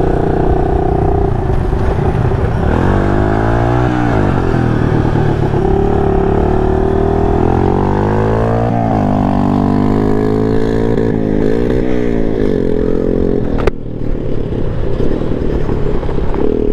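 Honda Ruckus scooter's small four-stroke single running under way, its pitch falling and rising several times as the throttle is eased off and opened again. A sharp click about fourteen seconds in.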